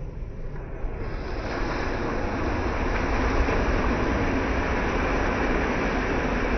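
Small waves breaking and washing up a pebble (shingle) beach: a hiss of surf that swells over the first couple of seconds, then holds steady over a low rumble.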